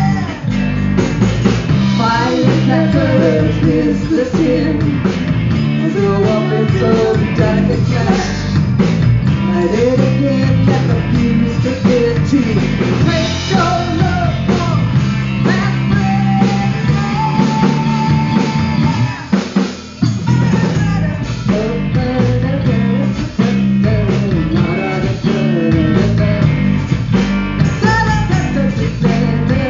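Live rock band playing: electric guitar, bass guitar and drum kit, with a woman singing over them. The band drops out briefly about two-thirds of the way through, then comes back in.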